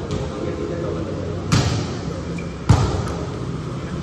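Volleyball struck hard twice, two sharp smacks a little over a second apart, the second louder, over steady background noise that echoes like a large hall.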